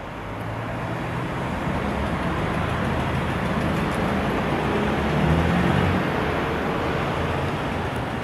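An engine running steadily under a loud rushing noise, fading in over the first second.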